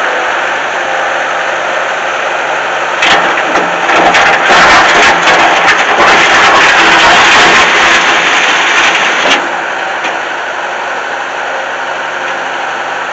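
Diesel engine of a Bobcat 873 skid steer running steadily. About three seconds in a much louder, rougher sound rises over it, then cuts off suddenly about nine seconds in, leaving the engine running.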